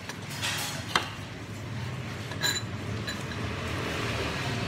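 Metal spoon clinking against a ceramic bowl: a sharp tap about a second in and a ringing clink about two and a half seconds in, over a steady low hum.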